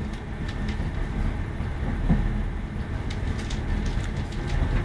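Passenger train running, heard from inside the carriage: a steady low rumble with faint, scattered light ticks.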